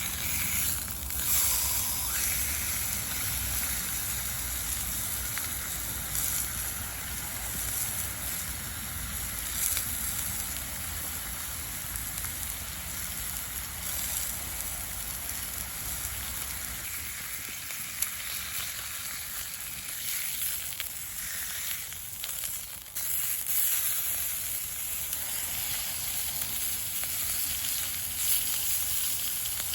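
Steak sizzling in a pan over a campfire: a steady hiss with a few sharp crackles.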